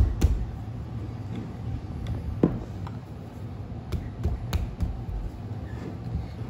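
Scattered light clicks and scraping as a screwdriver pries deer hide away from the base of the antlers, over a steady low hum.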